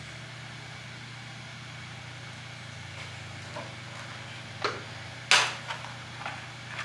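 Steady low hum, with a few light clicks and one sharp snap about five seconds in from hand tools working on the Jeep's wiring.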